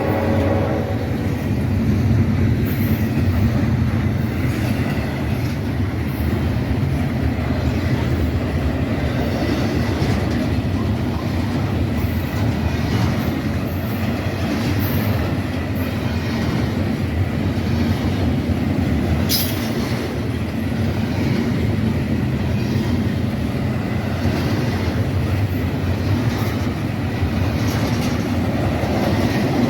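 Freight train rolling past with a loud, steady rumble of wheels on rail, with a faint high wheel squeal over it. The tail of a horn blast cuts off within the first second.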